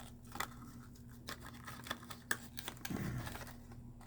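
Scattered small clicks and rustles of plastic packaging and diecast toy cars being handled, over a faint steady low hum.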